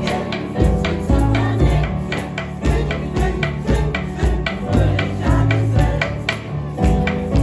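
Music: plucked guitar and other instruments playing over a steady beat of about two strokes a second.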